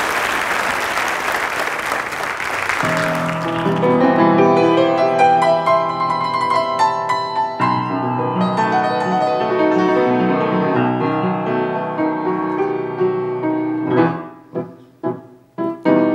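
Audience applause dying away in the first few seconds, then a grand piano playing a song introduction in held chords and melody; from about two seconds before the end it switches to short, evenly spaced chords.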